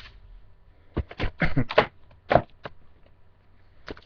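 Cardboard trading-card box and packs being handled: a quick run of sharp taps and knocks between about one and three seconds in.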